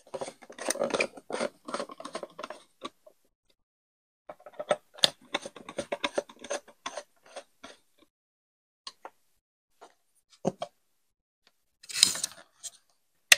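Screwdriver turning the small screws in the back of a meter case: two runs of rapid clicking and scraping, metal on metal. Then a few scattered knocks of handling, a short rustle near the end and a single sharp click at the very end.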